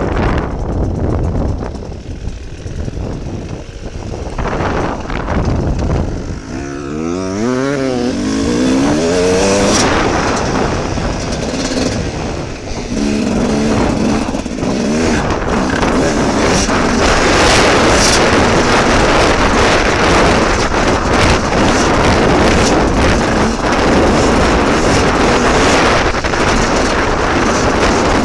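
Off-road dirt bike engine ridden over rough ground, heard close up from the bike. Its revs rise and fall several times about a quarter of the way in, then hold high and steady.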